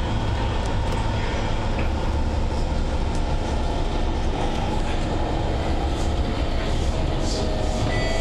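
Steady running noise inside an SMRT C151 metro train carriage travelling between stations: a constant low rumble of wheels on rail and the running gear, with faint steady tones above it.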